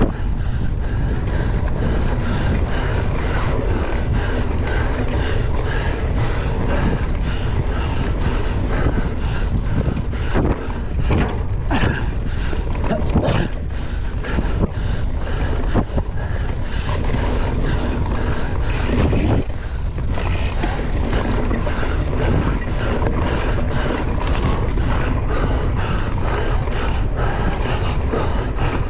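Wind rushing over the microphone of a mountain bike ridden at race speed, with a steady low rumble. Scattered knocks and rattles come from the bike over rough ground, thickest in the middle stretch.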